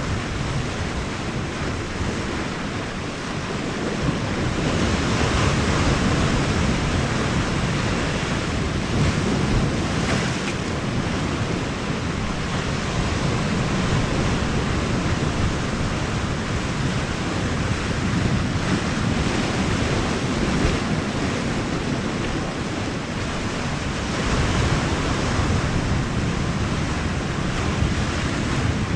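Sea surf washing against the shore with wind buffeting the microphone, a steady rush that swells a little twice.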